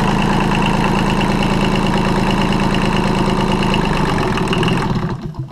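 Kubota D850 three-cylinder diesel running steadily, then shut off near the end, dying away in a few last uneven beats within about half a second.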